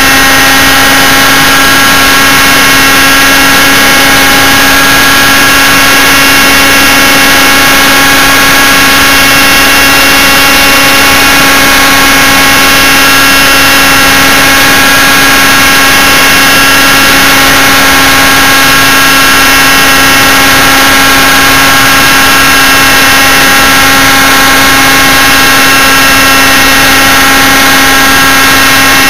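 Model helicopter's engine and rotor running at a steady, unchanging pitch, loud and close to the onboard camera's microphone.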